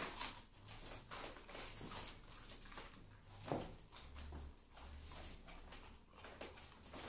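A man chewing a Carolina Reaper chilli and breathing hard through his mouth against the burn, a run of short, faint wet mouth sounds and breaths, with one louder sharp sound about three and a half seconds in.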